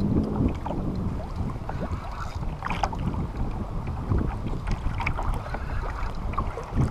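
Wind buffeting the camera microphone over water lapping against a plastic kayak hull, with scattered small splashes and ticks.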